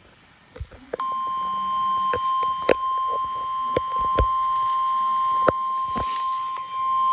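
NOAA Weather Radio warning alarm tone: a single steady high tone of about 1050 Hz that comes on about a second in, signalling that an urgent warning broadcast follows. Sharp crackles and pops of radio reception static break over it several times.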